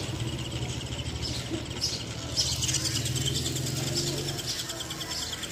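Water in a plastic tub splashed and stirred by hand around a toy RC off-road truck, over a steady low hum that stops about four seconds in. A fast, regular high chirping runs through the second half.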